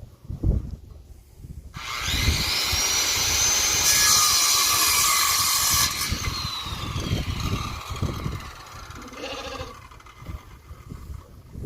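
Power tool starting with a rising whine, running loudly for several seconds, then winding down with a falling whine.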